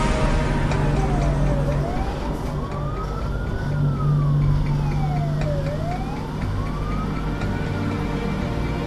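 Fire engine's wailing siren, slowly rising and falling about every four seconds, over the truck's engine and road noise, heard from inside the cab.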